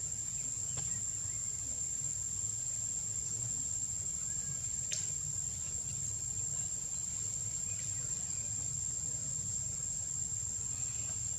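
Steady high-pitched insect drone, with a low rumble underneath and a faint click about five seconds in.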